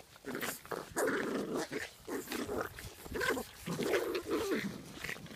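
Five-and-a-half-week-old American Bulldog puppies growling in play as they tug at a towel, in a string of short bursts.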